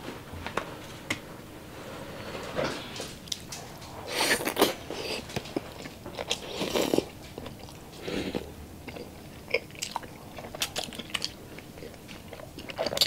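Biting into and chewing a balut, a boiled fertilized duck egg topped with chili, heard as close-up mouth sounds with irregular clicks and bites. The loudest bites and chews come at about four and seven seconds in.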